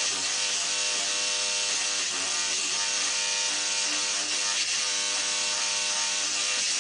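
Electric toothbrush running steadily: a constant motor buzz with a hiss over it, with no break.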